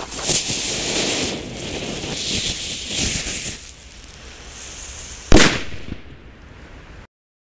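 Homemade flash-powder firework ('crazy salute') burning with a loud, fluctuating hiss of spraying sparks for about three and a half seconds, then a fainter hiss. A single sharp bang comes a little over five seconds in.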